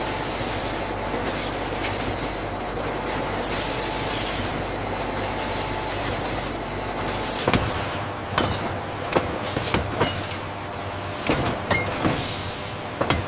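Factory machinery running with a steady hiss and low hum. About halfway through the hum stops, and irregular metallic clanks and knocks follow.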